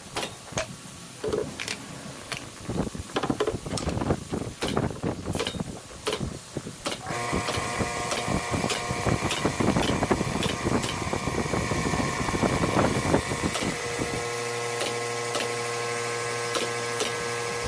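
Pneumatic nail gun firing nails into solid-wood cabinet trim, sharp shots at an irregular pace throughout. A steady machine hum starts about seven seconds in and drops to a lower, fuller tone about fourteen seconds in.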